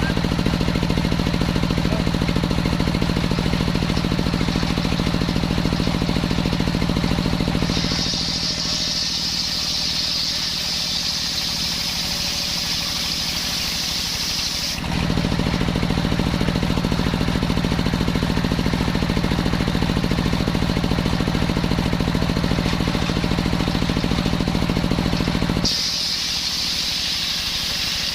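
Engine-driven circular saw running steadily with a deep engine hum. About eight seconds in, for several seconds, and again near the end, a high-pitched whine comes in while the engine note drops back, as the blade cuts through coconut wood.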